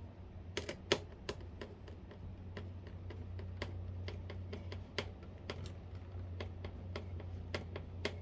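Screws being driven by hand into a plastic case fan's frame: a run of irregular, sharp clicks and ticks.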